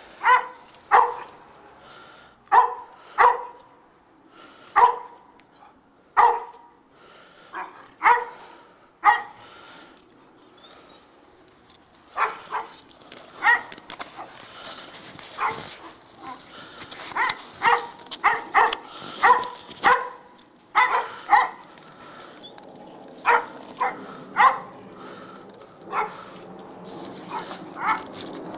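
Dogs barking repeatedly: single sharp barks about a second apart, becoming quicker and bunched together from about halfway.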